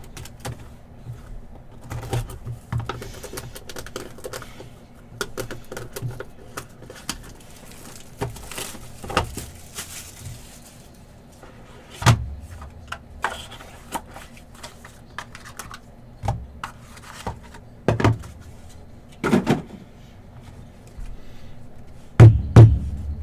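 Rustling, clicking and tapping as a trading-card hobby box is unwrapped and opened and its cards, some in hard plastic holders, are handled. A crinkly hiss comes about 8 seconds in, and several sharp knocks against the table come later, the loudest two near the end.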